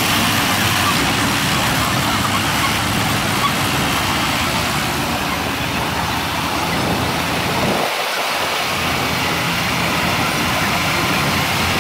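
Diesel farm tractor engines running as tractors drive slowly past one after another, with a short dip in the low engine sound about eight seconds in.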